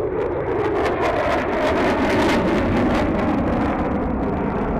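Jet noise from a Lockheed Martin F-22 Raptor's two Pratt & Whitney F119 turbofans as it passes overhead: a loud rushing rumble with rapid crackling, building to a peak about two seconds in and then easing slightly.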